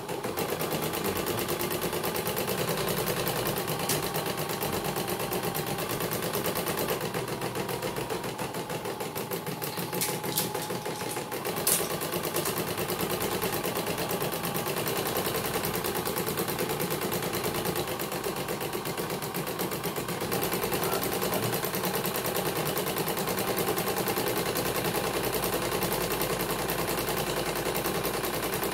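CNY portable computerized embroidery machine stitching a design with its cover off: a rapid, steady clatter from the needle bar and hoop drive, with a few sharper clicks near the middle.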